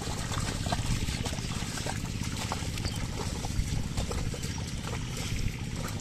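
Wet mud and water sloshing and squelching under a pair of bullocks' hooves and a wooden plank leveller dragged through a flooded paddy field, with scattered small splashes over a steady low rumble.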